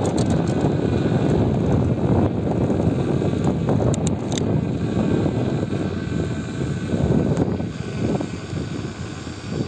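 Wind buffeting the microphone of a phone carried on a moving bicycle: a loud, fluttering rumble, with a couple of light clicks about four seconds in. It eases briefly near the end.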